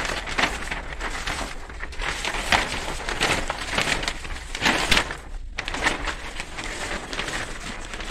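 Stiff insulation paper rustling and crackling in irregular strokes as a large sheet is handled and wrapped around a transformer's coil assembly.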